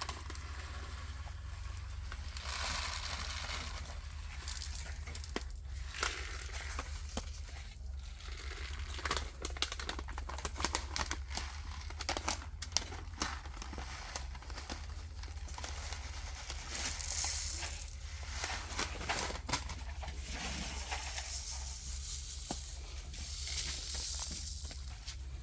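Light rustling, crinkling and scattered small clicks of hands at work sowing coated sesame seeds into a plastic plug tray, over a steady low hum.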